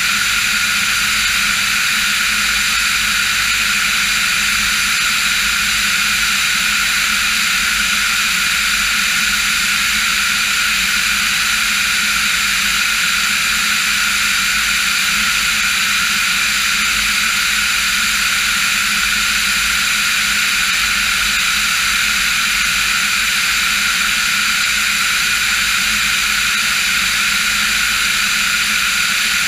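Diamond DA40 NG light aircraft's turbo-diesel engine and propeller droning steadily in cruise flight.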